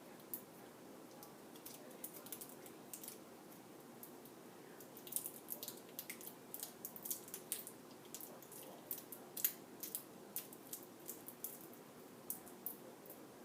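Hands working a folded paper craft: irregular light clicks and crackles of paper and tape being handled, busiest in the middle of the stretch.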